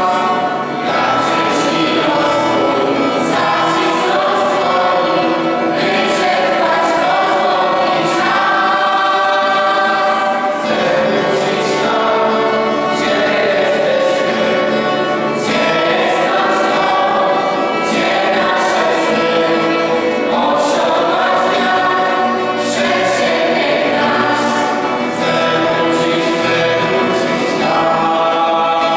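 A school choir of teenage girls and boys singing a Polish patriotic song together, in phrases of long held notes.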